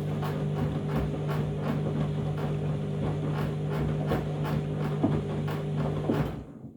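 Washing machine running a deep rinse: a steady motor hum with water sloshing in the turning drum, about three swishes a second. It cuts off suddenly near the end.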